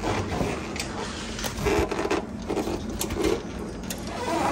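Hands working on a convertible soft top: irregular rustling of the top's material and small clicks and knocks from the top frame as the tension cable is fed through.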